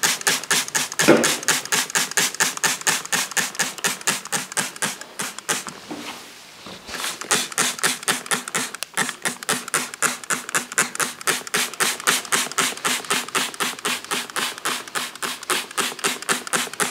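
Hand trigger spray bottle pumped rapidly, a fine-mist squirt several times a second, soaking loose model railway ballast with water before it is glued. It stops briefly about six seconds in, then carries on.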